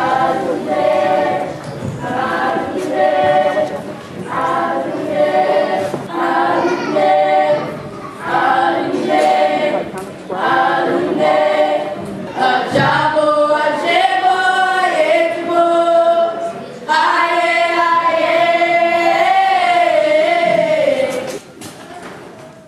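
A group of voices singing together without instruments, in short repeated phrases of about a second each, moving into longer held notes in the second half and fading out near the end.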